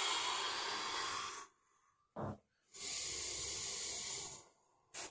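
A man breathing deeply and slowly during a held stretch. A long rushing breath stops about a second and a half in, a short sharp breath follows about two seconds in, and another long breath runs from about three to four and a half seconds, with a brief sharp breath at the very end.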